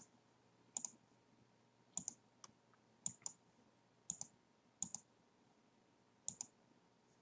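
Computer mouse clicking: about seven faint, sharp clicks, each a quick press-and-release pair, roughly one a second.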